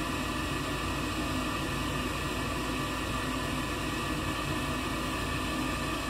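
High-efficiency gas furnace's draft inducer (venter) motor running steadily, a hum with a few constant tones over a hiss. The furnace is in its retry sequence after losing its flame signal.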